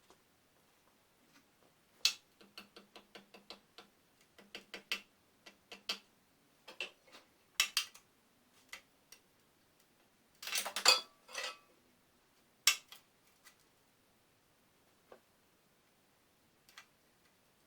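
Small metal parts clinking and tapping as they are handled: a run of quick light taps in the first half, then a short louder clatter about ten seconds in, and a few scattered clicks after.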